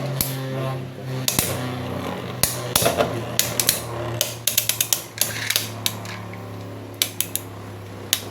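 Beyblade X spinning tops whirring in a plastic stadium after launch: a steady hum from the spin, broken by repeated sharp clacks, some in quick clusters, as the tops strike each other and the stadium.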